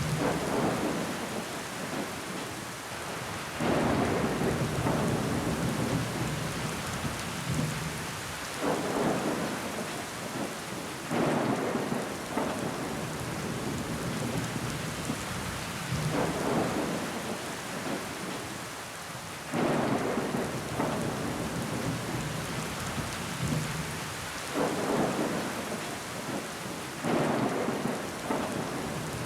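Steady heavy rain on window glass, with louder surges every few seconds that come on suddenly and fade away.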